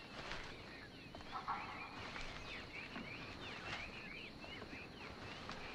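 Several birds chirping in many short, quick calls that overlap, over a soft steady background hiss.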